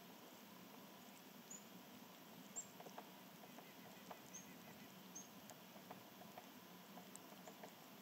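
Faint outdoor ambience: four short, high chip notes from small songbirds, and scattered soft ticks of birds pecking at seed on a feeder.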